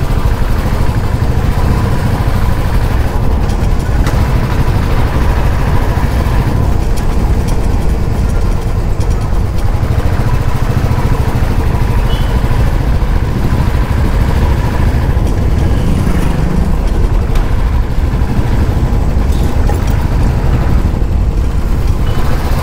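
Motorcycle being ridden steadily, a constant low rumble.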